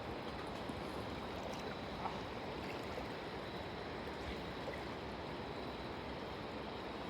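Steady rush of flowing river water, with a faint click about two seconds in.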